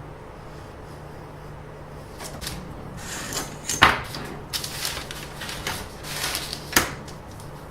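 Rustling and handling noise over a steady low hum, with two sharp knocks, the louder one near the middle and another near the end.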